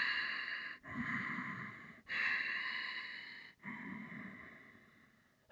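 A man breathing slowly and audibly, about four long breaths in and out in turn, the last one fading away.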